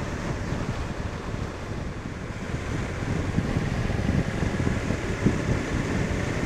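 Wind noise buffeting a helmet-mounted microphone at riding speed, with the Suzuki Intruder VL1500LC's V-twin engine running underneath.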